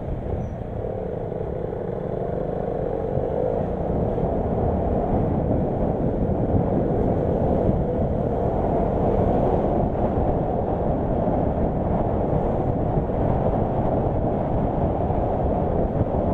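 Steady rumble of a Nilgiri Mountain Railway train running, heard from aboard a coach. A faint whine bends in pitch during the first few seconds.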